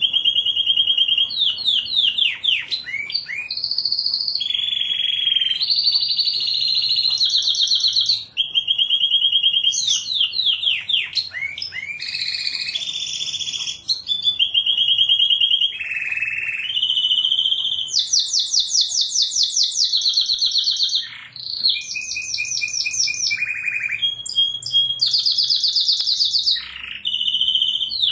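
Domestic canary singing one long unbroken song. It is made of rapid trills, each a single note repeated many times a second, switching every second or two to a new higher or lower trill, with quick falling sweeps between some of them.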